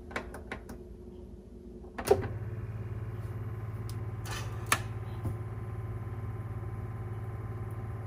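Keurig single-cup coffee brewer: a few light clicks of its brew button, then about two seconds in a click as its pump starts and runs with a steady low hum. The hum comes while the machine is failing to brew, and the owner calls it a weird sound it did not make before.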